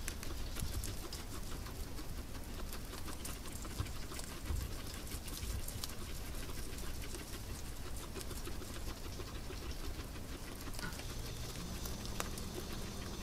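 Guinea pigs chewing and rustling hay: a steady run of small crisp clicks of munching. A faint steady hum joins near the end.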